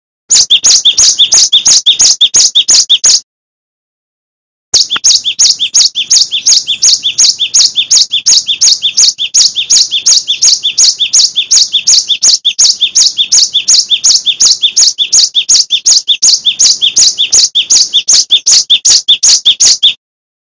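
Cinereous tit (gelatik batu) singing a fast, unbroken string of high, two-part repeated notes, about five a second. It stops abruptly about three seconds in and starts again after a second and a half of silence.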